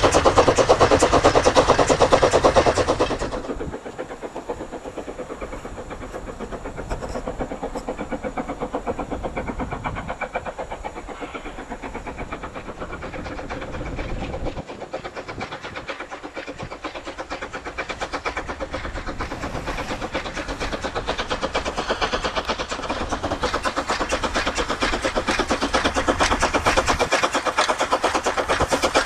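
Narrow-gauge steam locomotive working hard with a train, its exhaust chuffing in a rapid, steady beat. Loud at first, it drops away suddenly about three seconds in, then grows gradually louder toward the end as the locomotive draws closer.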